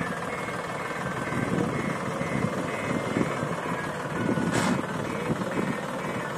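Diesel engines of a Sonalika DI 745 III tractor and a JCB backhoe loader running hard under load, as the tractor with its loaded trailer is pushed out of soft soil. About four and a half seconds in there is one sharp clank.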